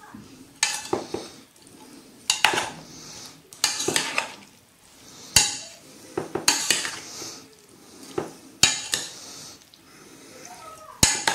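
Metal spoon stirring a chopped vegetable salad in an enamel pot: irregular clinks and knocks against the pot, with scraping between them.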